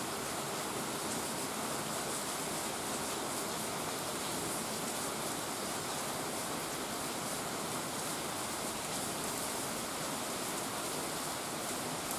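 Steady rain falling, an even hiss with a faint patter of drops.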